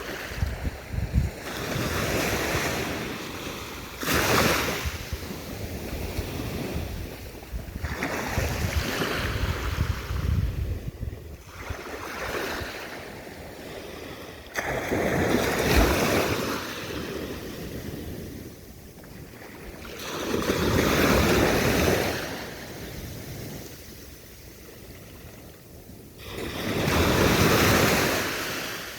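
Sea waves breaking and washing up the shore, surging and easing about every five or six seconds, the biggest surges coming about two thirds of the way in and near the end.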